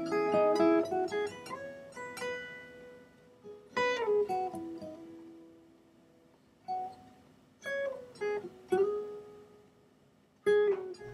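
Background music: a guitar picking short runs of plucked notes, each phrase ringing out and fading, with pauses between phrases.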